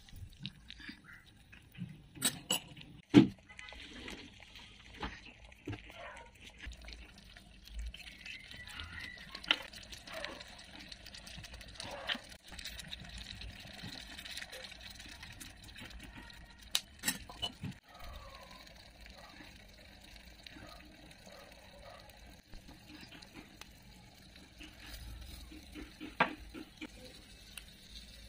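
A metal spoon clinking and scraping against a small clay cooking pot as onion and tomato are stirred, with water poured in and a few sharp knocks from utensils and small bowls.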